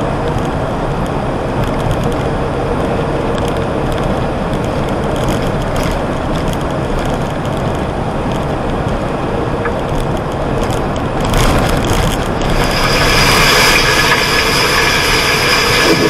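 Steady engine and road noise inside the cab of a Freightliner semi-truck at highway speed. About twelve seconds in, a louder, hissier sound with a high whine joins it.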